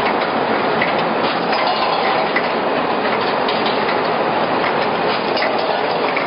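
Automatic sugar-cone making machine running: a steady mechanical clatter with scattered light clicks.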